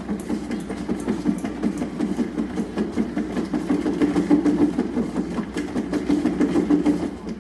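Large cat exercise wheel spinning under a running cat: a steady rapid rattle.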